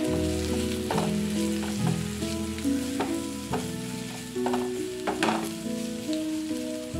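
Carrot slices and onions sizzling in oil in a frying pan, stirred with a wooden spatula that scrapes against the pan about once a second.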